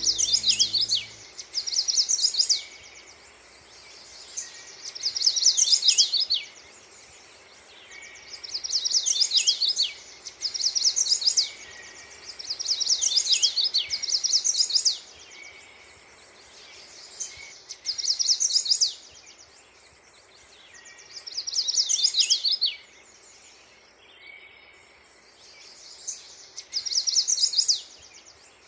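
A songbird sings short phrases of rapid high chirps, about one phrase every three to four seconds, over a steady background hiss. The last notes of music fade out about a second in.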